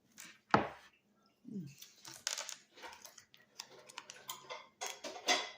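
Plates and food being handled at a table: a sharp clack about half a second in, then irregular light clicks and scrapes.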